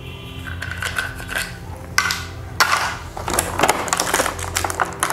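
Plastic toy tools and parts clicking and rattling in a plastic tray as they are handled, with a few separate clicks early on and a busier clatter in the second half.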